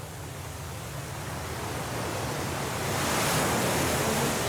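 Stormy sea waves: a wave builds up and breaks in a rushing wash, loudest about three seconds in and easing slightly near the end.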